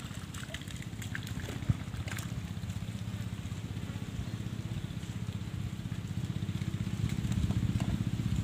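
A small engine running steadily, a low hum with a fast, even pulse, growing louder near the end. A single sharp knock a little under two seconds in.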